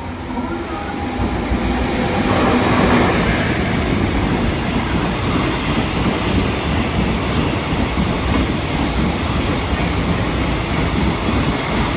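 JR freight train passing close by: a steady rumble and rattle of wagon wheels on the rails, growing louder a second or two in and then holding.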